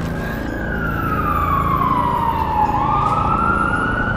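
Siren wailing, its pitch falling slowly for about three seconds, then sweeping back up near the end, over a low rumble.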